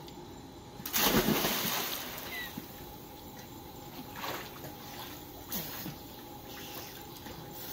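A child jumping into a swimming pool: one loud splash about a second in, followed by smaller splashes and water sloshing as she swims.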